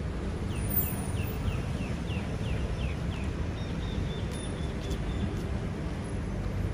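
Steady low street-traffic rumble, with a bird giving a quick run of short falling chirps, about three a second, followed by a few short higher notes.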